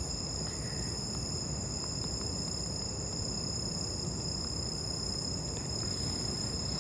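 Night insects, crickets or cicadas, chirring in a steady, unbroken high drone, over a low rumble of background noise.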